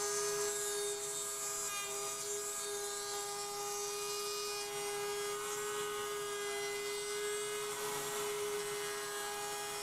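Table-mounted router running at speed with a steady whine while a roundover bit cuts the edges of a pine door frame being fed past it.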